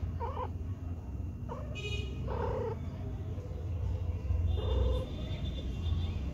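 Cat purring steadily, with four short cat calls scattered through it.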